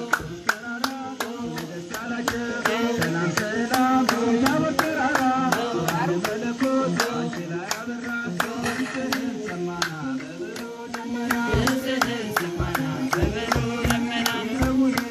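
A child singing a Buhe song into a microphone, with women clapping a steady beat, about three claps a second.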